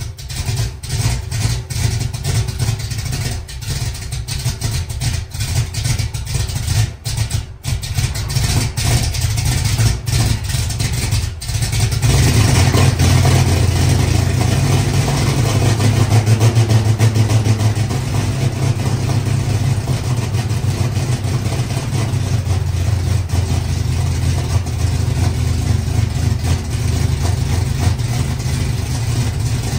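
Chevy Nova's carbureted engine running on its new Quick Fuel Brawler carburetor, uneven with dips for the first dozen seconds, then steadier and louder from about twelve seconds in. It is running on choke: the electric choke is stuck shut because its ground wire is not hooked up.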